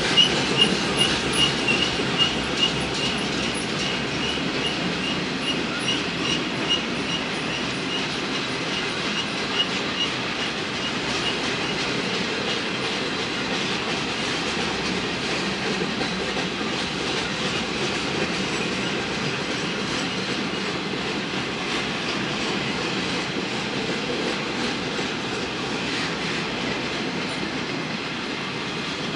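Freight train of flatcars loaded with wind turbine blades rolling steadily past, a continuous rumble and clatter of wheels on rails. A faint high ping repeats a few times a second and fades out over the first ten seconds or so.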